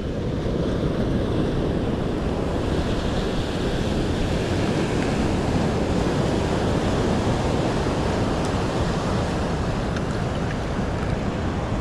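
Steady rushing noise of surf and wind on the microphone, with no distinct events.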